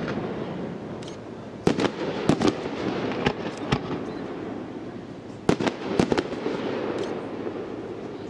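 Fireworks display: a series of sharp shell bursts and reports, several in quick pairs, over a fading crackling rumble and its echo.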